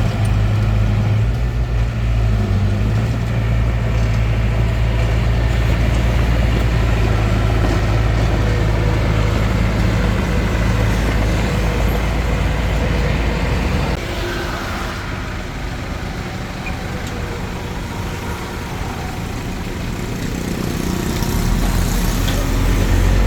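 Hitachi DX45M bulldozer's diesel engine running steadily with a strong low hum, easing off about two-thirds of the way through and picking up again near the end.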